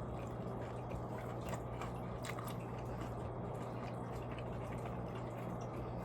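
A person chewing a chicken nugget: faint soft mouth and chewing sounds with a few small clicks, over a steady low hum.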